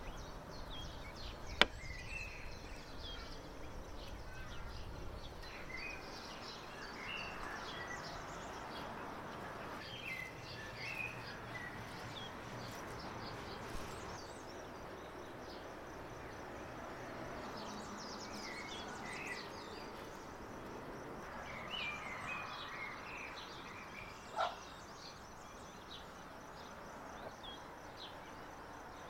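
Small birds chirping on and off over a steady outdoor background. There is one sharp knock about a second and a half in, and a softer one near the end.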